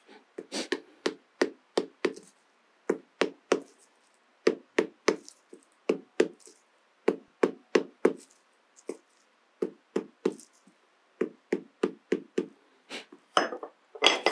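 Repeated sharp knocks, about two a second in short runs with brief pauses, as a dried corn cob is driven onto the end of a steel wire rod to make a heat-proof handle. The last few knocks are louder.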